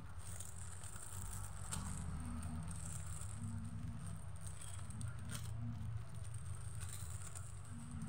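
Mylar foil balloons rustling and crinkling as they are unfolded and handled, with a couple of sharper crackles, over a steady low rumble.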